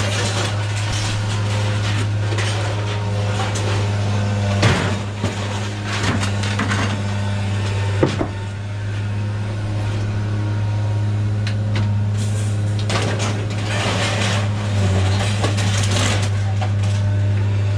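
An engine running steadily with a low, even hum, with a couple of sharp metallic knocks, one about five seconds in and another about eight seconds in.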